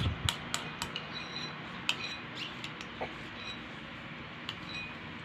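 A few light, scattered clicks and clinks of small hard objects, some with a short high ring. They come close together in the first second, then space out and fade to occasional ticks.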